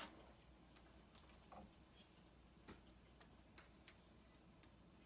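Near silence with a few faint, scattered clicks of a plate and wooden spatula against the cooking pan as slit green chilies are dropped in.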